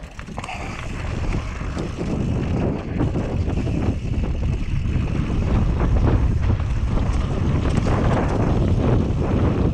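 Wind buffeting the microphone over the steady run of a Whyte G-170 mountain bike's tyres on a loose gravel trail at speed, with a continuous patter of small knocks and rattles. It grows louder over the first two seconds as the bike picks up speed.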